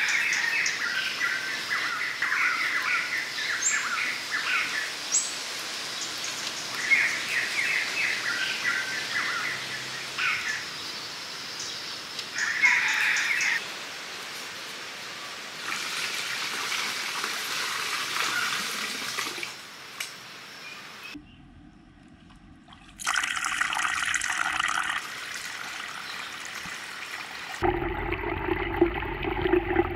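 Small birds chirping in short bursts over steady outdoor background noise for the first half. After abrupt cuts, the second half holds rushing, trickling water.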